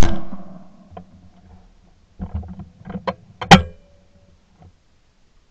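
A single shotgun shot, heard through a camera mounted on the gun's barrel, ringing out for about a second; then a run of mechanical clicks and clatter and one sharp, loud clack about three and a half seconds in.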